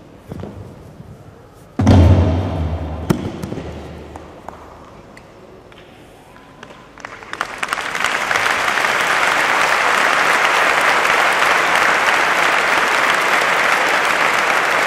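A few light knocks, then a heavy low thump about two seconds in that rings on briefly. From about seven seconds in, a large audience breaks into applause that builds and then holds steady.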